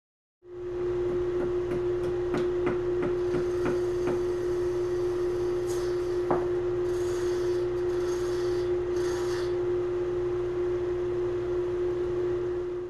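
Wood lathe running with a steady whine and hum while a very sharp 3/8-inch gouge cuts a maple turning, giving an even scraping hiss with a few sharp clicks in the first few seconds and one about six seconds in.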